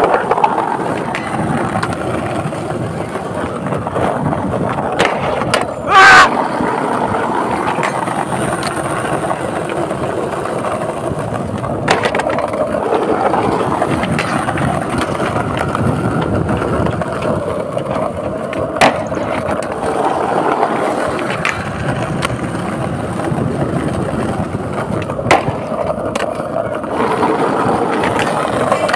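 Skateboard wheels rolling steadily over rough concrete, with a very loud clack about six seconds in and several sharper single clacks of the board on the ground and a flat bar later on.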